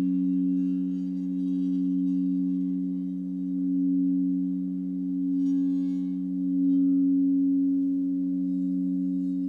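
Sound-healing frequency drone: steady pure, sine-like tones held together, slowly swelling and fading in loudness, with a faint high shimmer about five and a half seconds in.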